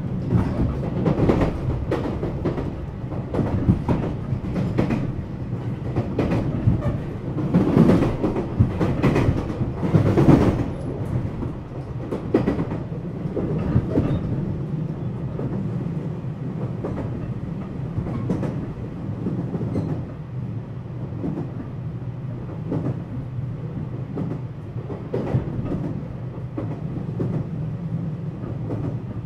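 Running sound inside a JR West 227 series electric train car: a steady low rumble with the wheels clicking over rail joints. The clicks are louder and closer together in the first half.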